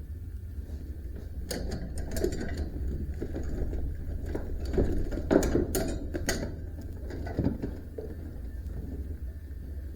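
Hand work on a band sawmill during a blade change: scattered metal clicks, knocks and rattles, busiest in the middle, over a steady low rumble.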